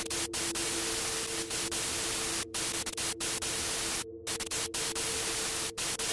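Static hiss, steady and even, cut off briefly about four times, over a steady low hum.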